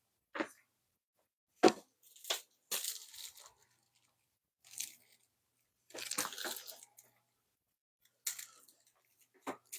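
Objects being handled on a tabletop: about eight short crinkling and rustling noises with a few light knocks, spread unevenly, the longest rustles about 3 and 6 seconds in.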